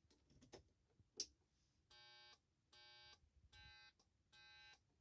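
A couple of sharp clicks, then about two seconds in a piezo buzzer wired to the car's turn indicator starts beeping in time with the flasher. It gives a buzzy tone about half a second long, repeating a little faster than once a second, so the otherwise unseen indicator can be heard.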